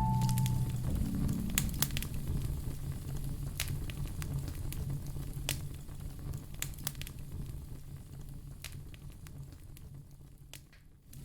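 Wood fire in a fireplace crackling, with scattered sharp pops over a low steady rumble of flame; it grows gradually fainter toward the end.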